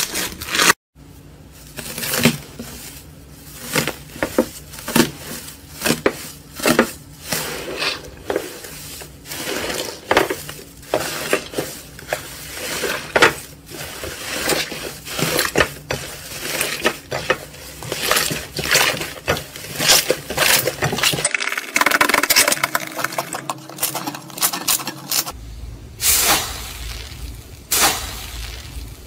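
Slime being squeezed and pressed by hand, giving a dense run of small crackling clicks and pops. The sound changes abruptly about a second in and twice near the end, where one slime clip gives way to the next.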